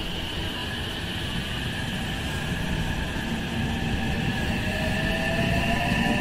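A JR West 227 series electric multiple unit gathering speed along the platform. Its traction motors whine in several tones that glide upward in pitch over a rumble of wheels on rail, getting louder toward the end.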